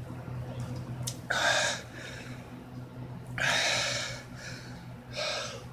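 A man gasping hard for breath between gulps while chugging a can of beer, three loud gasps: about a second and a half in, a longer one near the middle, and a short one near the end.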